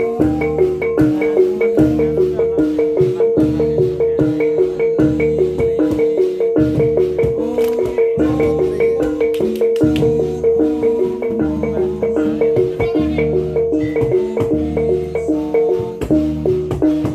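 Live Javanese gamelan playing a fast, repeating pattern for reog dance: bronze pot gongs struck with mallets over a deep stroke about once a second, with many sharp percussive hits.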